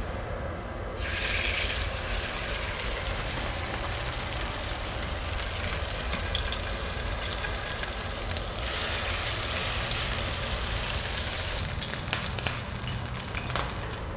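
Blackfin tuna searing in hot oil in a nonstick frying pan, a steady dense sizzle. It starts about a second in as the fish goes into the pan and becomes a little duller in its upper part later on.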